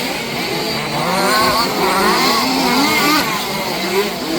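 Several 1/5-scale RC off-road cars' small petrol two-stroke engines running together, their overlapping pitches rising and falling as they rev and ease off.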